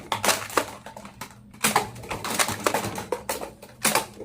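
Plastic toy blasters being handled: a quick run of irregular sharp clicks and clatters.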